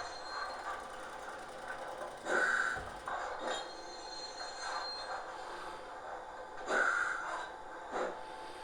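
Model BR 80 locomotive and train running on a model railway layout: a steady hiss of running noise, with two louder short bursts about two and a half seconds and seven seconds in.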